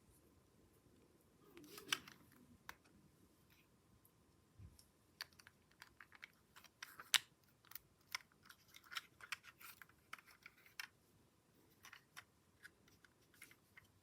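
Lego plastic parts clicking and tapping as a model is handled: faint, irregular quick clicks, busiest in the second half, with louder clicks about two seconds and seven seconds in.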